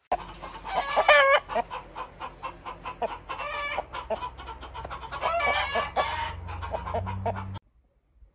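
Rooster crowing about three times, with short clucking calls between the crows. The sound cuts off suddenly near the end.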